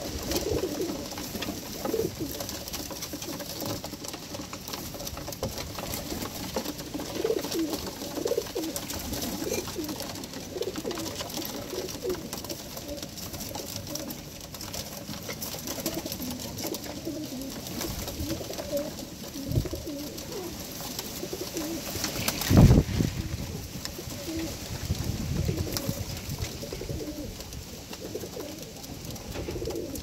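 Birmingham Roller pigeons cooing over and over, many short low calls overlapping. A single loud thump comes a little over three-quarters of the way through.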